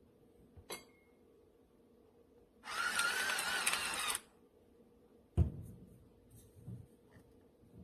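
A click, then a CIRCLE JOY electric pepper grinder's motor runs for about a second and a half, a whirring grind with a wavering whine, and stops. A dull thump follows a second later.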